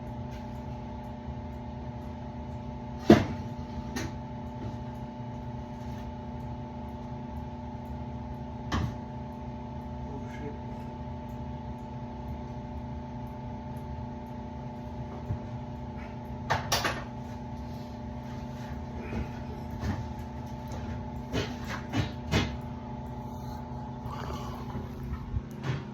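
Steady mechanical hum with scattered sharp knocks and clicks as metal parts and panels of a furnace are handled; the loudest knock comes about three seconds in, with a cluster of clicks near the end.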